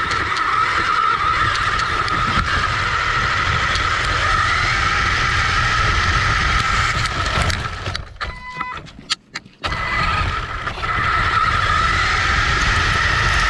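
Battery-powered RC side-by-side buggy driving: a steady electric motor and gear whine over the rumble of the tyres and chassis on rough ground. The whine cuts out for about a second and a half a bit past halfway, then picks up again.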